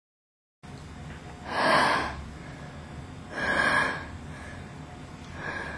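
A person breathing heavily: three loud, breathy gasps about two seconds apart, the last one fainter, over a steady low background noise that starts after a moment of dead silence.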